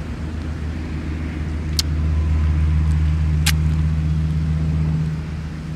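A low, steady motor-vehicle engine hum that swells about two seconds in and eases off near the end. Two short sharp clicks come through it.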